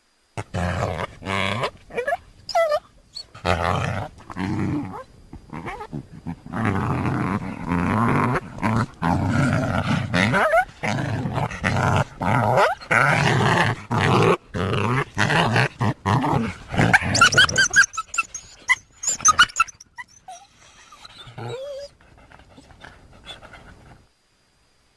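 Dog-like creature growling and snarling in a long run of short rough bursts, voicing the extinct canid Archaeocyon. About 18 seconds in it turns to high-pitched yelping whines, then fainter whimpers, and stops shortly before the end.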